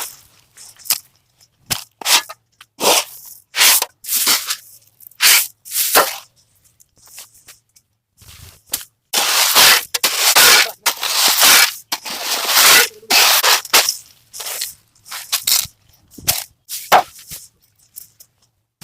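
Dry maize husks and stalks crunching and tearing in irregular bursts, with a longer stretch of steady scraping about nine to thirteen seconds in.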